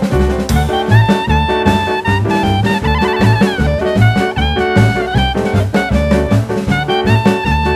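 Background music: an upbeat jazzy tune with a horn-like lead melody over a steady drum beat.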